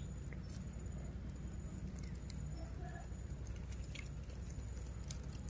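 Quiet outdoor ambience: a faint steady high-pitched insect drone over a low rumble, with a few small clicks and rustles.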